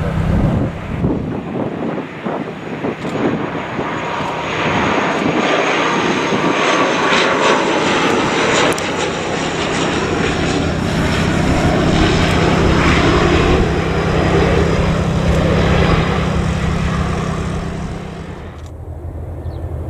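Bombardier Dash 8 Q400 turboprop on final approach and landing: a steady low propeller drone under engine noise that grows louder as the aircraft passes close, with a faint high whine slowly falling in pitch. The sound drops away suddenly near the end.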